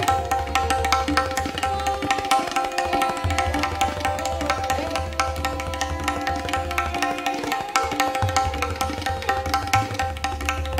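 Tabla solo in fast, dense strokes, a qaida built on the tirakita bol, over a sarangi bowing a steady lehra melody. The deep bass of the bayan drops out twice for about a second.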